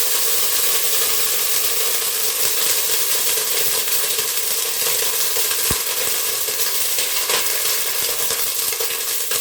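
Oil and a little water sizzling steadily in a hot cooking pot, with one light knock about halfway through.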